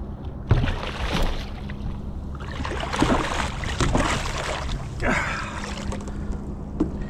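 A striped bass splashing at the surface beside the boat in several bursts as it is grabbed and lifted by the lure, over the steady low hum of a boat engine.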